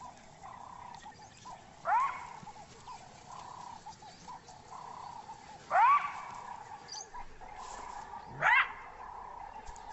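Side-striped jackal barking three times, a few seconds apart (about 2, 6 and 8½ seconds in): each bark is a short yap that sweeps quickly up in pitch. Faint, steady chattering calls continue behind the barks.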